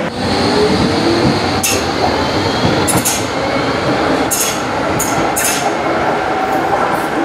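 Docklands Light Railway B2007-stock two-car train running along the platform, with steady wheel-on-rail and motor noise and a handful of short, sharp high-pitched clicks and squeaks from the wheels and track.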